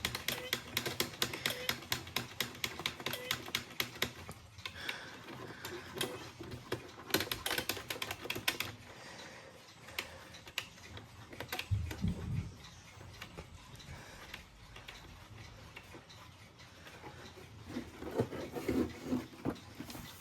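Runs of rapid mechanical clicking from a chime clock's mechanism, stopping and starting, with a dull thump about twelve seconds in.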